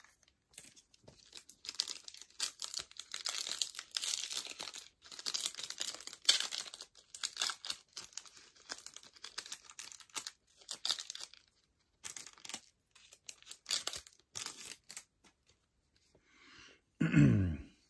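Foil wrapper of a Topps Opening Day baseball card pack crinkling and tearing open, in irregular crackly rustles with short pauses. A man's voice starts near the end.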